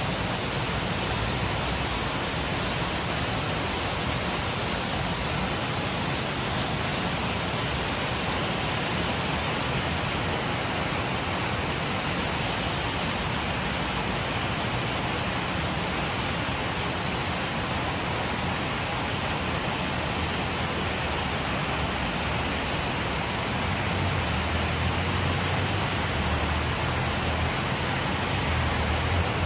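Steady heavy rain, an even hiss with no let-up. A low rumble joins it for the last few seconds.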